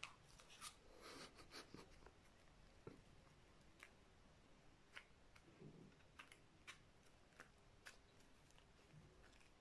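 Near silence, with faint scattered taps and rustles of a cardboard puzzle piece being handled and set down on a paper game board.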